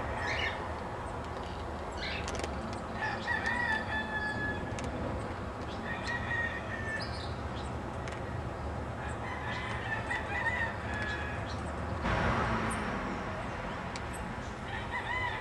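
A rooster crowing among other birds, whose short wavy chirping calls repeat every few seconds over a steady background noise.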